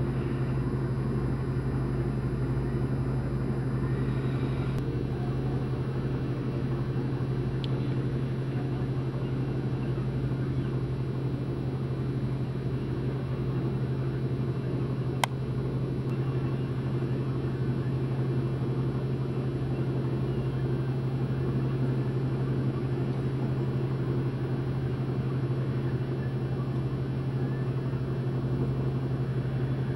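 Steady low mechanical hum and rumble with a constant drone, and a single sharp click about halfway through.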